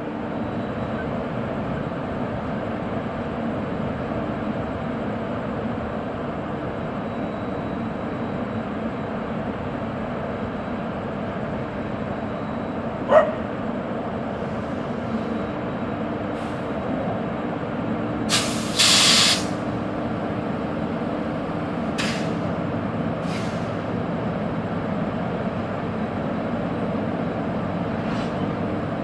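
WAP1 electric locomotive idling while energised, its auxiliary machinery giving a steady hum. Partway through comes one sharp click, then short bursts of compressed air hissing out, the loudest lasting about a second.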